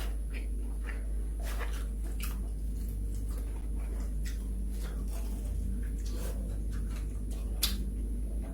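Close-up chewing of fried chicken, with scattered wet mouth clicks and lip smacks over a steady low hum.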